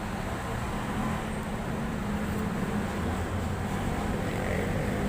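Steady low rumble of road traffic in the background, growing slightly louder.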